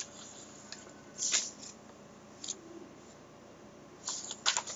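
Faint scattered clicks and rustles of handling at a desk, with a small cluster of them near the end.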